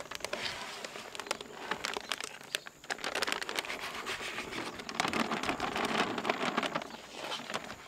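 A clear plastic bag crinkling and rustling as it is handled and tipped, with dry powdered cement pouring out of it into a plastic tub. It gets louder from about five seconds in.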